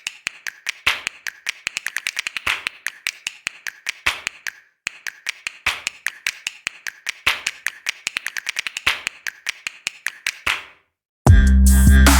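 Quick runs of sharp clicks, several a second, with a brief pause about five seconds in. Near the end the clicks stop, and loud electronic music with heavy bass cuts in.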